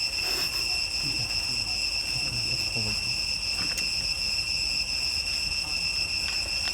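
Steady, high-pitched insect chorus, crickets or cicadas shrilling without a break, with faint low murmurs underneath in the first few seconds.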